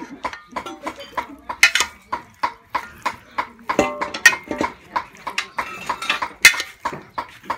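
A metal ladle stirring and tossing raw chicken pieces with lemongrass and galangal in a metal pot, knocking and scraping against the pot about three times a second. A few louder clangs ring briefly.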